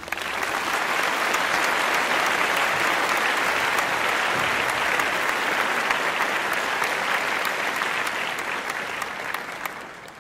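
Applause starting right as the song ends, steady for several seconds, then fading out near the end.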